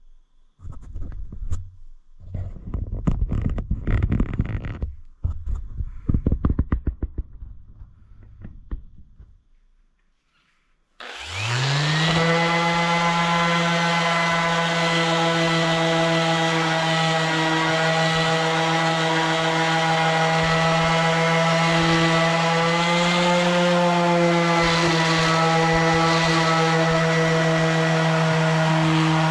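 Irregular scraping and knocking on wood for several seconds. About eleven seconds in, an electric woodworking machine starts, spins up quickly and runs steadily at one pitch.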